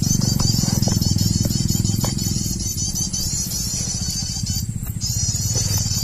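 A steady low drone with a fast pulsing texture, like a small engine running, under quick high-pitched chirps that repeat over and over at an even pace.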